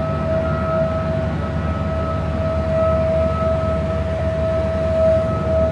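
A steady, unchanging high whine over a constant low engine rumble, typical of heavy clean-up machinery running; the whine cuts out at the very end.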